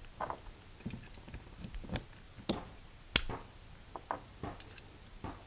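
9mm cartridges, a mix of brass and steel cases, being pressed one at a time into the H&K VP70Z's double-stack, double-feed magazine by hand. Each round snaps into the feed lips with a small metallic click, giving a string of irregular clicks; the loudest two come about two and a half and three seconds in.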